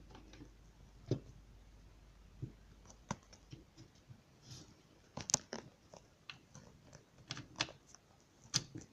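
Irregular clicks and knocks of the plastic and metal parts of a Brother MFC-9330 laser printer's fuser unit being handled and fitted together during reassembly, with the loudest cluster of clicks about five seconds in.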